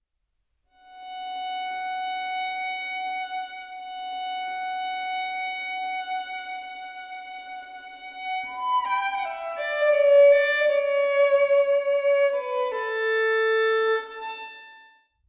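Solo violin: one long held high note, then a run of shorter notes stepping mostly downward, stopping just before a low rumble sets in.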